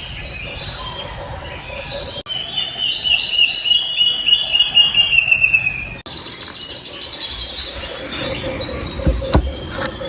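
Wild forest birds calling and singing: a long trill that falls slowly in pitch, then a quick run of high repeated notes, over a steady faint hum. The sound changes abruptly twice, and there is a single low thump near the end.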